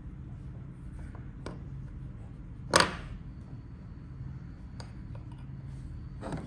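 Small parts of a metal fidget slider being handled: a few light clicks and one loud, sharp clack about three seconds in, over a low steady hum.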